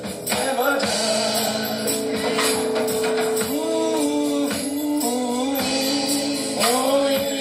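Live gospel music: long held sung notes over the band, with a tambourine shaking in rhythm.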